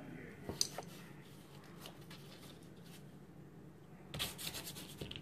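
Small handling noises at a craft table while gluing a thin wooden strip: a couple of sharp clicks about half a second in, then a brief patch of rubbing and scraping about four seconds in, over a steady low hum.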